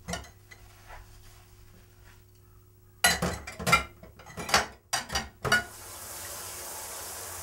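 Dishes and cutlery clinking in a kitchen sink during washing-up: a few light clinks at first, then a sudden run of loud clattering about three seconds in. A steady hiss follows for the last couple of seconds.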